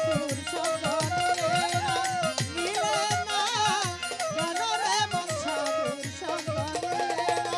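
Instrumental interlude of Bangladeshi Baul folk music: a melody instrument plays a wavering tune over a hand drum whose deep strokes slide down in pitch, in a steady rhythm.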